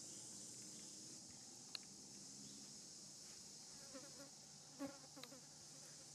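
Faint, steady high-pitched drone of insects calling outdoors. A single soft click sounds just under two seconds in, and a few short, faint calls come about four to five seconds in.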